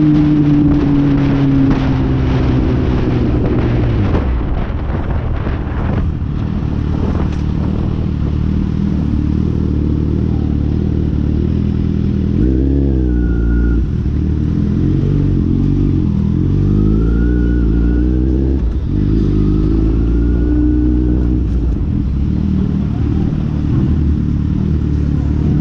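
Four-cylinder sport motorcycle engine heard from the rider's position over heavy wind noise, its pitch falling as the bike slows in the first few seconds, then revs rising and falling several times from about halfway.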